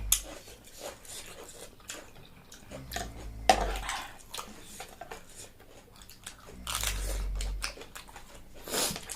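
A person chewing and biting food close to the microphone, with many short wet mouth clicks. A low muffled rumble comes in twice, about three seconds in and again around seven seconds.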